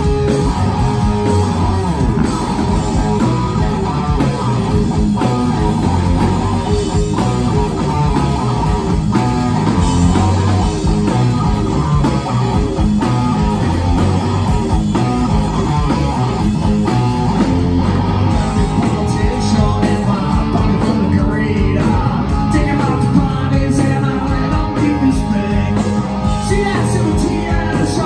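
A rock band playing live: electric guitar, bass guitar and drums, loud and without a break.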